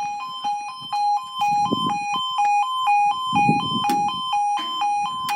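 Level crossing warning alarm sounding, a two-tone yodel alternating between a lower and a higher note about twice a second, while the barriers come down for an approaching train.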